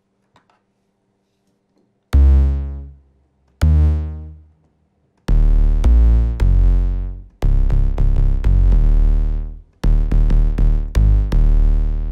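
808 bass synth patch ('808 Thump Bass' from the Alliance Kontakt library) played from a keyboard. Two single notes come about two seconds in, each with a hard attack and heavy low end, dying away over about a second. A quick run of overlapping bass notes follows.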